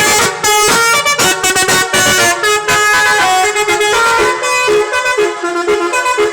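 A Marita bus's telolet horn, a set of multi-tone air horns, playing a loud, fast tune of changing notes with a few short breaks between phrases.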